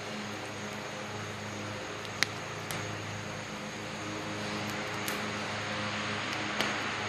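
A steady mechanical hum, like a fan or air-conditioning unit running, with a few faint sharp clicks.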